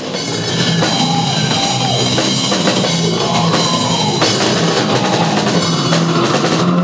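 Deathcore band playing live: a drum kit drives dense, loud heavy-metal music.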